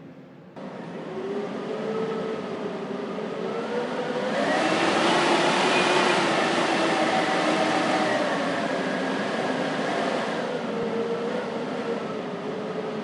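Winter storm wind howling, with wavering whistling tones over a steady rush. It comes in suddenly about half a second in, swells to its loudest in the middle and eases a little near the end.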